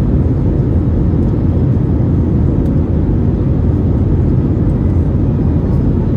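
Airbus A321neo cabin noise: a loud, steady low rumble from the Pratt & Whitney PW1100G geared turbofans and the airflow, heard from inside the passenger cabin. It stays even throughout, with no rising or falling in pitch.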